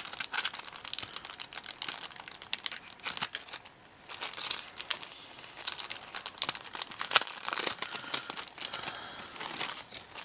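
Clear cellophane packaging crinkling and crackling in the hands in quick, irregular bursts as a sheet of adhesive pearls is worked out of its plastic sleeve.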